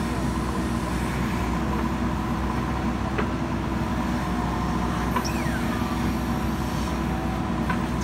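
JCB backhoe loader's diesel engine running steadily as the backhoe arm digs and lifts a bucket of soil, with a few faint clicks from the working arm.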